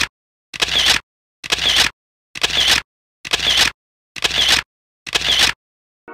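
Camera shutter sound effect repeated six times, about one a second, each a short half-second snap with dead silence between.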